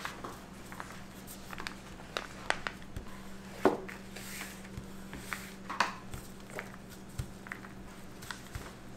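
Food-preparation handling sounds: scattered light taps and clicks of utensils and ingredients being worked, irregularly spaced, over a steady low hum.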